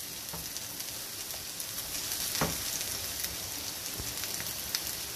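Chopped cooked chicken and softened onions sizzling steadily in a little oil in a frying pan as they are stirred with a wooden spoon, with one light knock about two and a half seconds in.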